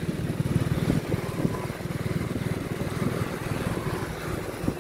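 Motorbike engine running while riding along the road, a rapid low pulsing.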